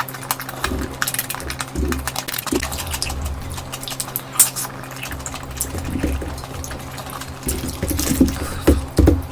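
Close-miked eating sounds: wet chewing, lip-smacking and squelching of mouthfuls of curry, a dense run of short crackles and smacks with soft low thuds now and then.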